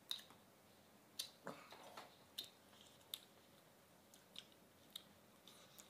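Quiet eating sounds: chewing and mouth noises over spicy shredded eel, with about seven short, sharp clicks spread through.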